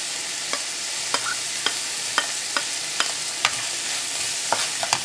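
Chopped onions and green chili sizzling in hot oil in a non-stick wok: a steady hiss, with sharp clicks every half second or so as they are stirred with a plastic spatula.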